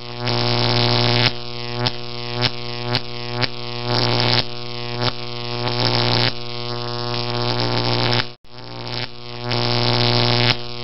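Background music: a low, steady synthesizer drone with notes struck about every half second, cutting out for a moment near the end.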